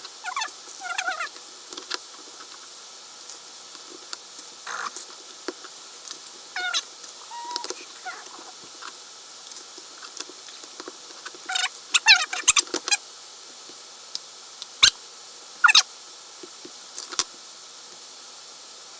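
Sped-up time-lapse audio of LEGO building: short, squeaky, high-pitched scraps of voice and handling noise, with a few sharp clicks of plastic pieces in the second half.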